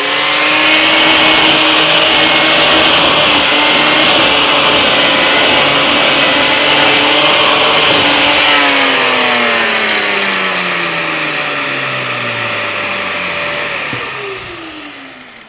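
Metabo LF 724 S electric paint remover milling varnish and stain off a pine board with its carbide blades, a steady high motor whine over a rough cutting noise, with a dust extractor drawing through the hose. About eight seconds in the cutting stops and the motor's pitch falls as it winds down. A second steady tone holds until near the end and then also falls away.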